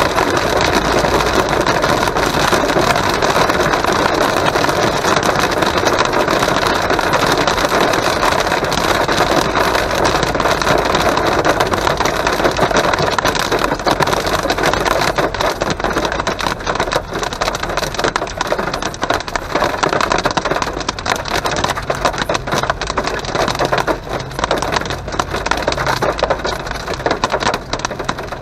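Heavy rain drumming on a car's windshield and roof, heard from inside the cabin together with tyre noise on the wet road. It eases after the middle, with separate drops ticking more distinctly.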